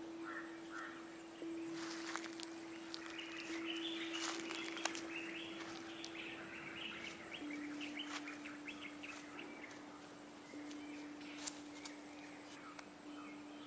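Small birds chirping in a forest, a dense run of short high calls that is busiest in the first half and thins out later. Underneath, a faint held note sounds throughout and steps down in pitch about halfway through.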